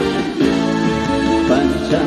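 Live trot music played loud through stage speakers: the band's accompaniment between sung lines, with no words sung.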